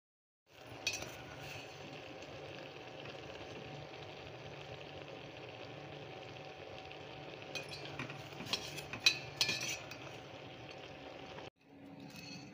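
Steel ladle stirring and scooping rice in a steel pot, clinking sharply against the metal several times, mostly in a cluster a few seconds before the end, over a steady hiss.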